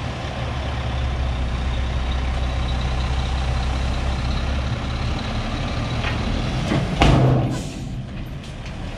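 Western Star tri-axle dump truck's diesel engine running steadily with the box raised, dumping sand as the truck creeps forward. The low engine rumble drops off about five seconds in, and a brief loud burst comes about seven seconds in.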